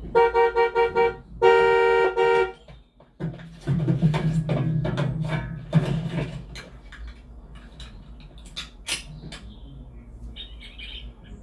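A horn tooting in a quick run of short pulses, then one longer blast about a second and a half in. After it comes a low rumbling mechanical sound with scattered clicks and knocks, fading down to a few light knocks.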